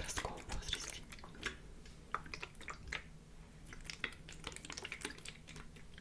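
Close-miked wet mouth sounds: irregular lip smacks and tongue clicks, thinning out briefly around the middle.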